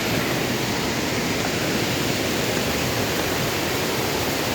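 Rushing water of a small forest stream: a steady, unbroken rush.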